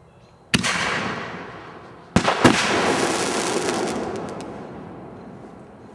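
Two fireworks fired one after the other: a sharp bang about half a second in that trails off over a second or so, then a second bang with a quick follow-up report, trailing off over about two seconds with a few faint crackles near the end.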